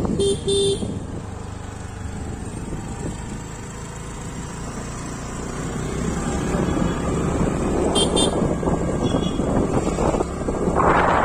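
Wind rushing on the microphone of a moving motorcycle, with two short beeps near the start. The rush dies down to a quieter stretch in the middle, then builds again and is loudest near the end.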